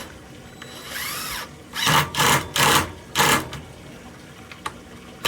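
Cordless drill driving a screw: the motor spins up slowly and back down, then runs in four short trigger bursts as the screw is driven home.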